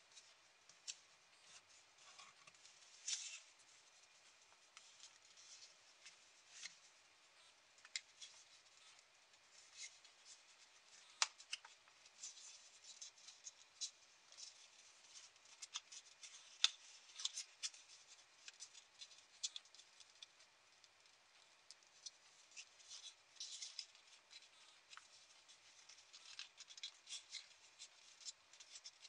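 Thin origami paper being folded and creased by hand: faint, irregular crinkling with many short, sharp crackles and a few louder snaps scattered through.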